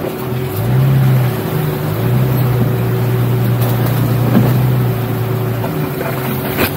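Jeep Cherokee XJ engine running at low, steady revs while crawling off-road, its pitch dropping and rising slightly a few times as the throttle changes.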